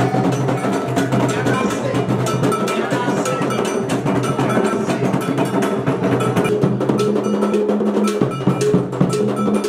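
Drum ensemble playing a fast, busy rhythm, with an iron bell striking on top, as dance music for a chief's dancing.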